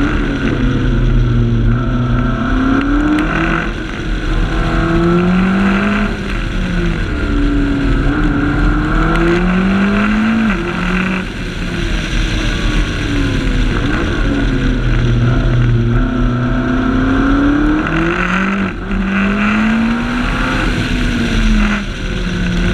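McLaren 12C's twin-turbo V8 heard at the rear of the car, its pitch climbing and falling as the car accelerates and slows through bends. The pitch jumps abruptly several times at gear changes, over steady wind and tyre noise.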